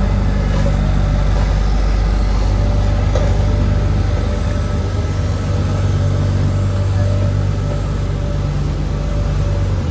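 Diesel road-surfacing machinery running steadily: a tandem asphalt roller compacting fresh tarmac close by, with an asphalt paver working behind it. The sound is a loud, even engine hum that eases slightly as the roller moves away.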